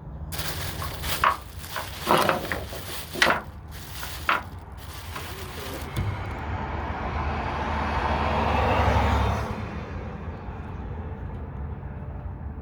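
A rock sling whirled overhead, whooshing through the air about once a second, four sharp rushes in a row. Then a longer rushing hiss swells over several seconds and dies away, over a low rumble of wind on the microphone.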